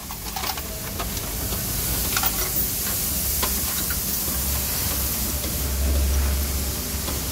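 Steady hiss and a low rumble that swells about halfway through, with a few faint metallic clinks as an engine hanging on hoist chains is guided into the engine bay.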